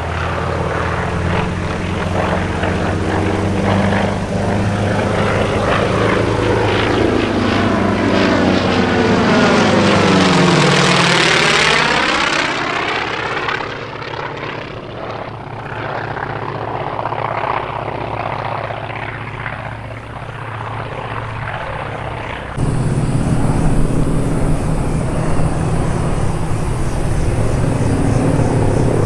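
Radial-engined North American T-28 Trojan propeller aircraft droning overhead. One plane passes with its engine note dropping in pitch about ten seconds in. About three quarters of the way through the sound jumps suddenly to a louder, steady drone from the formation of T-28s.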